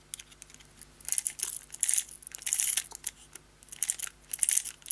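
Clockwork spring motor of a vintage Marx toy car being wound with its key: its ratchet rasps and clicks in about four short bursts, one for each turn of the key.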